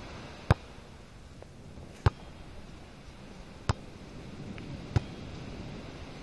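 A beach volleyball being struck by players' hands and forearms during a rally: four sharp slaps about a second and a half apart, over a steady background hiss.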